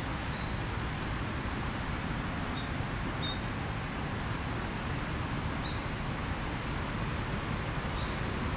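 Steady outdoor park ambience: an even background noise with a low rumble, and four faint, short, high chirps scattered through it.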